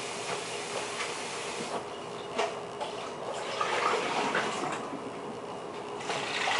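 Steady hiss of running water. It thins out suddenly about two seconds in and comes back near the end, with a few light knocks.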